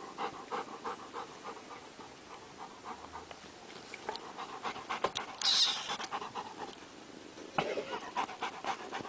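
Large dog panting in quick, even breaths, about four a second. About halfway through there is a brief, louder rush of hiss-like noise.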